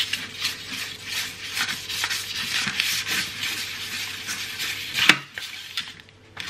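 A piece of butter rubbed briskly back and forth over a metal non-stick oven tray, a continuous scraping, rubbing noise, with a single knock about five seconds in.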